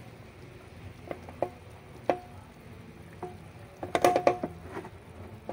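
Milkfish grilling under banana leaf in a pan: irregular pops and crackles from its juices, with a quick cluster of pops about four seconds in.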